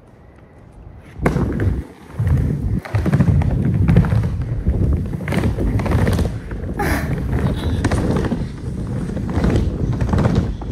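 Skateboard wheels rolling over a wooden skate bowl, a loud steady rumble that starts about a second in. There is a short break and a knock around two seconds in, then unbroken rolling through the transitions.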